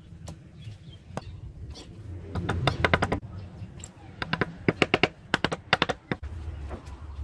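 Quick, light hammer taps on a carved wooden frame as small wooden pegs are driven in. The taps come in three short runs.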